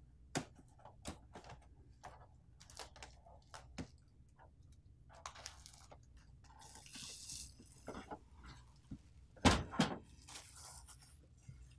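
Clear protective plastic film being peeled off a new inkjet printer's housing, crinkling in scattered crackles, with a louder crumple near the end as the plastic is bunched up.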